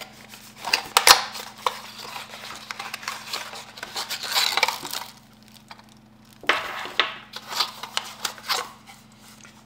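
A small product box and its packaging being opened and handled: crinkling, rustling and sharp clicks, with a short lull in the middle. A faint steady hum sits underneath.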